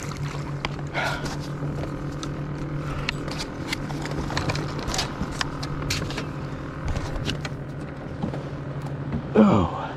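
Steady low hum of a Minn Kota Endura electric trolling motor running, with scattered light clicks and knocks of rod and reel as a striped bass is reeled in to the kayak.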